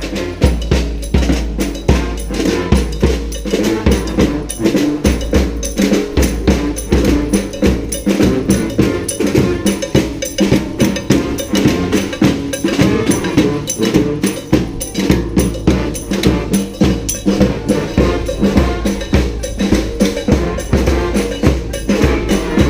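Street brass band playing a cumbia: horns carry the tune over a steady, regular beat of drums and hand percussion.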